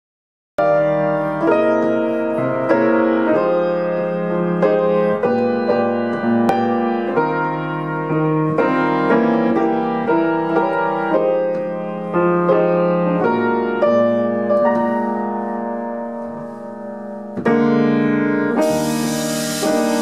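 Grand piano playing a slow, unaccompanied chordal introduction to a jazz ballad, each chord struck and left to ring. Near the end the drum kit joins with a cymbal hiss.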